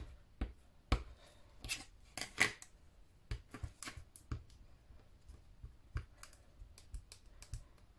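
A stamp on a clear acrylic block being inked on a Memento ink pad and pressed onto paper: a series of irregular soft taps and clicks, a few sharper ones about two seconds in.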